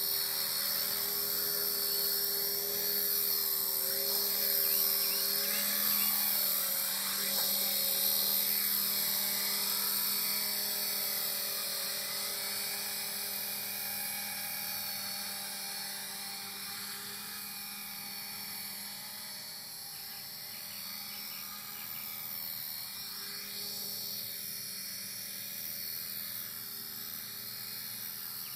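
Esky CPX electric RC helicopter in flight: a steady high whine of its motor and spinning rotors, the pitch shifting as it manoeuvres. It grows quieter in the second half as it moves farther off.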